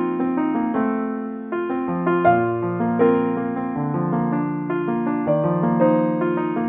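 Background music: a gentle electric piano playing a slow run of sustained notes and chords.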